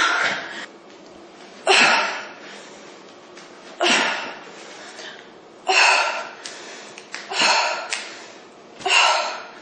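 A woman breathing hard and forcefully during strenuous exercise reps: sharp, loud breaths, roughly one every two seconds, keeping time with the repetitions.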